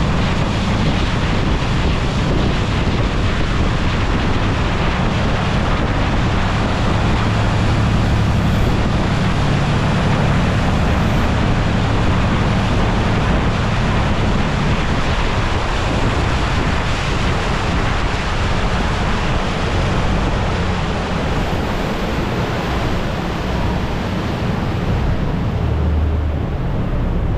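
Saen Saep canal express boat under way: its diesel engine drones steadily under loud rushing water and wind buffeting the microphone. Near the end the engine note drops lower.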